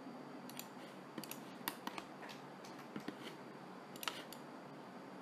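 Scattered, irregular clicks of a computer mouse and keyboard being worked at a desk, about a dozen short sharp clicks, over a faint steady hiss.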